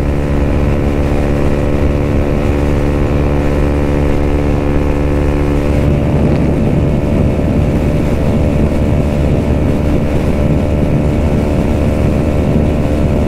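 Suzuki Gixxer 155's single-cylinder engine held flat out at steady high revs in its top, fifth gear, with wind rushing past. About six seconds in, the steady engine tone turns rougher and noisier.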